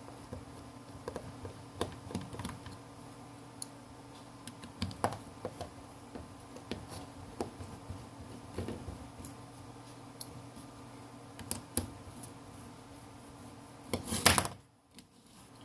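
Small irregular clicks and taps of a precision screwdriver and small tools on a smartphone's metal midframe as its tiny screws are taken out. Near the end comes a louder, longer scrape or clatter.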